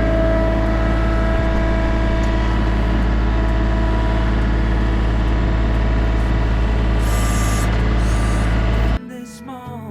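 John Deere 3025E compact tractor's diesel engine running steadily, driving the 340B backhoe, with a short hiss about seven seconds in. The engine sound cuts off abruptly about nine seconds in and music takes over.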